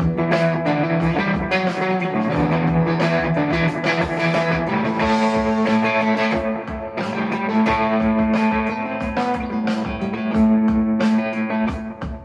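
Strat-style electric guitar played through an overdrive and a delay unit into a Vox AC15 valve amp's Celestion Alnico Blue speaker on the Top Boost channel: rhythmic picked chords and ringing notes with a mildly driven, vintage tone, the chord moving up about five seconds in.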